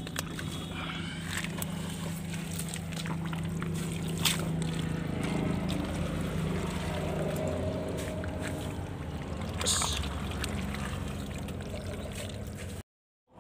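Water sloshing and churning in a shallow muddy canal over a steady low motor hum, with two short sharp splashes about four and ten seconds in.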